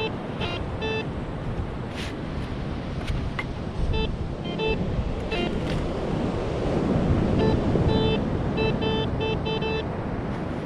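Metal detector beeping in groups of short, same-pitched tones while a target is pinpointed, over steady surf and wind noise that swells in the middle. A few sharp clicks are mixed in.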